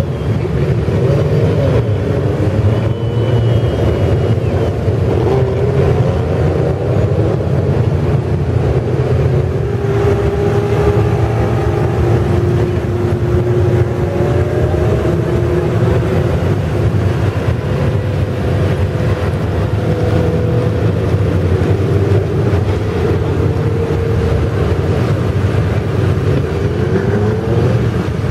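Legends race cars' motorcycle engines running on the track, several engines at once, their pitches rising and falling as they are revved and eased off, over a steady low rumble.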